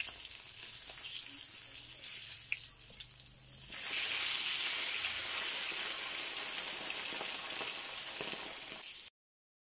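Whole tilapia frying in hot oil in a pan, sizzling steadily, with a few light taps of a wooden spatula in the first couple of seconds. About four seconds in the sizzle jumps suddenly louder and stays steady, then cuts off abruptly near the end.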